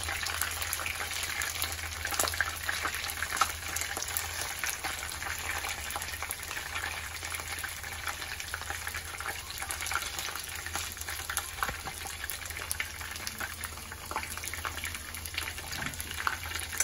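Chicken pieces frying in hot oil in a wide pan: a steady sizzling hiss with scattered crackles and pops.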